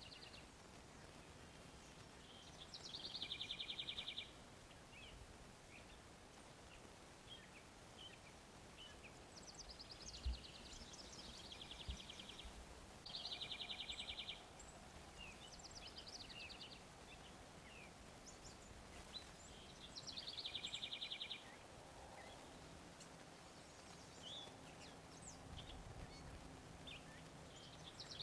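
Songbird singing a short, even, high trill three times, about seven to eight seconds apart, with faint scattered chirps and a quicker, higher run of notes between them.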